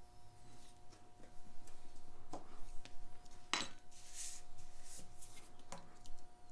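Small metal clicks, taps and brief scrapes of watchmaker's tools and parts during a watch teardown, scattered irregularly with the sharpest click about three and a half seconds in, over a faint steady hum.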